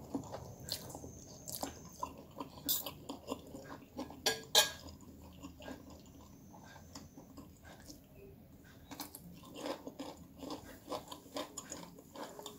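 A person eating fried noodles: chewing and mouth sounds, with a metal spoon and fork clicking and scraping on a plate. A few sharper clinks, the loudest about four and a half seconds in.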